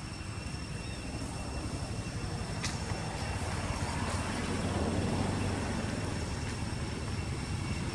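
Low rumble of a passing motor vehicle, swelling to its loudest about five seconds in and then holding, over a faint steady high-pitched whine.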